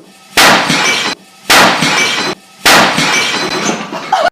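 Three loud smashing crashes of breaking glass, evenly spaced about a second apart, each trailing off over most of a second.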